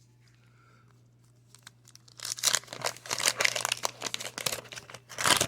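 A baseball card pack's paper wrapper being torn open and crinkled in the hands. It starts about two seconds in, after a quiet stretch, and ends with a loud crackle.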